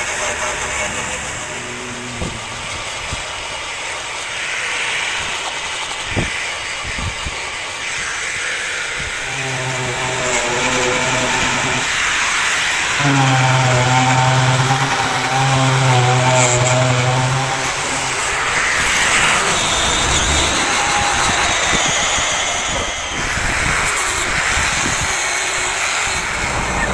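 Angle grinder with an abrasive disc sanding rust and old paint off a steel truck frame to prepare it for painting, giving a harsh, hissing grinding noise. In the middle a steady low hum comes on and stops three times, a few seconds each.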